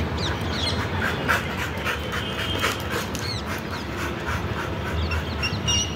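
A pet dog panting in quick, even breaths, with a few short bird chirps over a steady low rumble.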